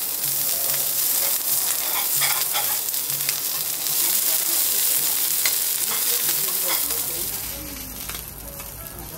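Beef fat sizzling on a hot steel teppanyaki griddle, with metal spatulas clicking and scraping against the plate now and then. The sizzle gets quieter near the end.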